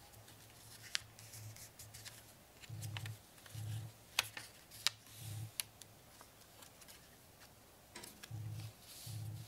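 A sheet of origami paper rustling and crackling as hands fold it and press the creases, with a few sharp crinkles.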